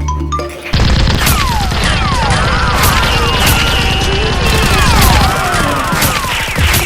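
Rapid gunfire sound effects, dense volleys of shots with swooping whistles, over background music. The shots start suddenly under a second in, after a deep low hum.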